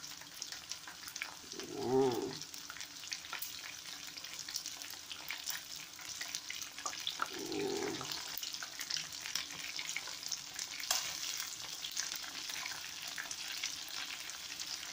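Chicken wings frying in hot oil in a pan, sizzling steadily with a constant fine crackle.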